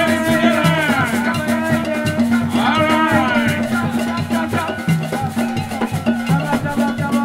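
Live Ben Skin traditional dance music from West Cameroon: hand drums beat a fast, steady pattern on two alternating pitches under continuous shaking rattles. Voices sing in swooping phrases through the first half.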